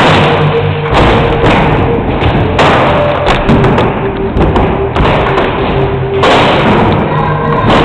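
Wheels rolling and rattling over skatepark ramps, heard close up from a helmet camera, with a thud about every one to one and a half seconds from landings and ramp transitions. Music plays in the background.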